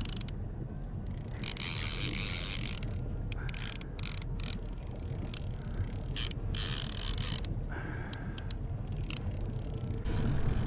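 Fishing reel being cranked against a hooked fish, giving several short spells of mechanical whirring and ratcheting, over a steady low rumble of the boat running.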